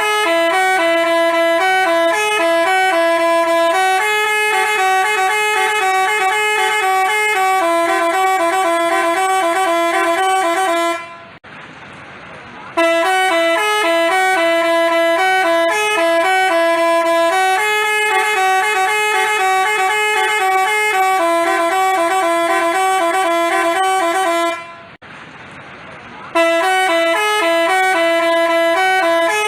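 Telolet basuri musical bus horn playing a tune of sustained, stepping tones, repeated in phrases of about eleven seconds, with two short breaks about 11 and 25 seconds in.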